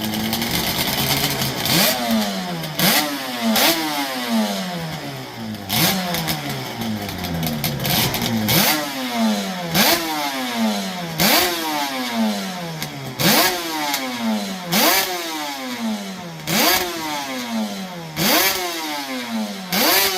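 Classic motorcycle engine being blipped over and over, about a dozen times, each rev snapping up sharply and then dying back down, with a sharp exhaust crack at the top of each blip.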